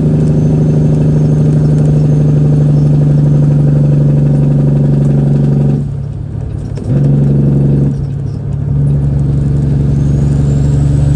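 Semi-truck diesel engine droning steadily at highway speed, heard inside the cab. Its sound drops away twice for about a second, around six and eight seconds in, then picks up again.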